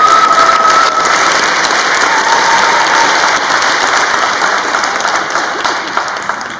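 Audience applauding, a hall full of clapping that slowly thins out and drops away near the end, with a long high whistle over it in the first second.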